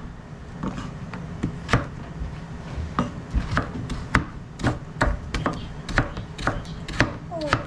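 Kitchen knife dicing kabocha squash on a cutting board: irregularly spaced knocks of the blade striking through the flesh onto the board, roughly one or two a second.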